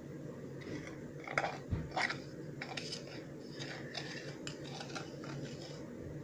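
A utensil scraping and clicking against a bowl in irregular strokes while stirring glue and baking soda into slime. The strokes are loudest about one and a half to two seconds in, over a steady low hum.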